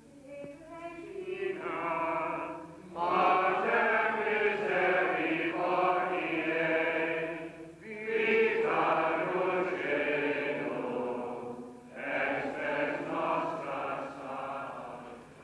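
Slow sacred singing in four long held phrases with short breaks between them, in the manner of a chant or hymn.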